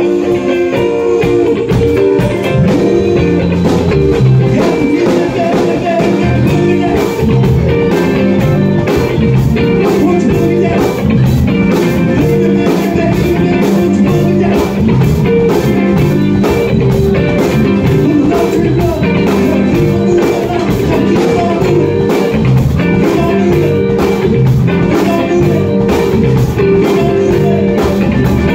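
Live band playing rock with electric guitars, electric bass and a drum kit over a steady beat.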